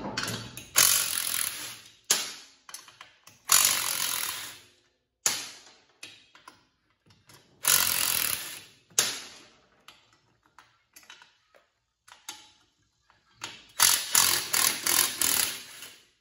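DeWalt cordless impact tool hammering in about four short bursts, with a socket on a swivel joint, backing out the 14 mm bolts that hold the ATV's axle carrier. Small clinks of metal come between the bursts, and the last burst, near the end, is the longest.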